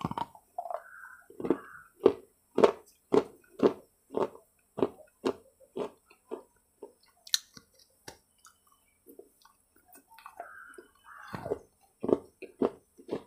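Crunchy bites and chewing of a dark baked clay bar close to a clip-on microphone: about two crisp crunches a second, then a quieter pause with one sharp click, then a few more crunches near the end.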